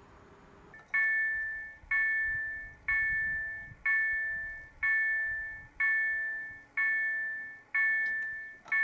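Level crossing warning bell ringing, starting about a second in: eight clear strokes about a second apart, each ringing out and fading before the next.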